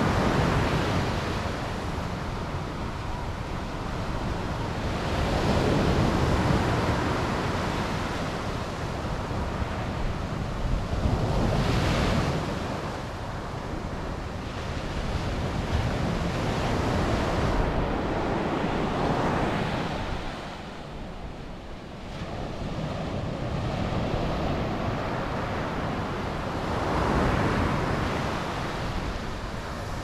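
Sea surf breaking and washing up a sandy beach, swelling and easing every six seconds or so as each wave comes in. Wind rumbles on the microphone throughout.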